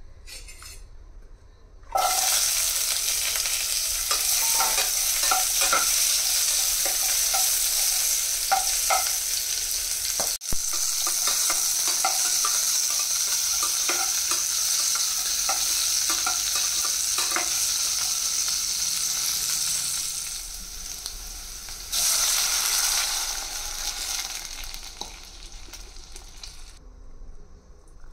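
Chopped vegetables tipped into hot oil in an aluminium pot start sizzling suddenly, then fry with a steady sizzle while a spatula stirs them with scraping clicks. Near the end a fresh loud burst of sizzling as water goes into the hot pot, fading away.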